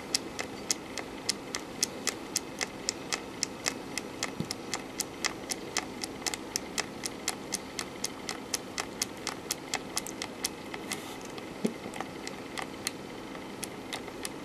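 Small toggle switch being flicked on and off over and over, a sharp click about three times a second, hand-clocking a Z80 CPU one step at a time. The clicks grow softer in the last few seconds.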